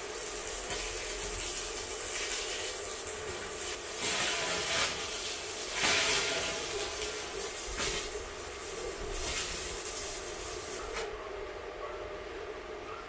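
Stick welding with a portable inverter arc welder: the electrode's arc crackling and hissing steadily as a bead is laid on steel pipe, stopping about eleven seconds in. A steady hum runs underneath.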